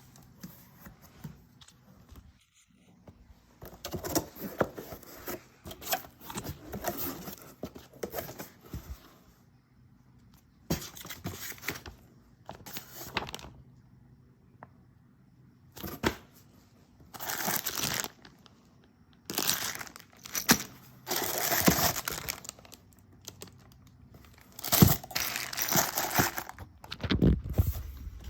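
Ceiling fan packaging being unpacked: irregular bursts of tearing and crinkling, each lasting one to a few seconds, with short quiet gaps between them.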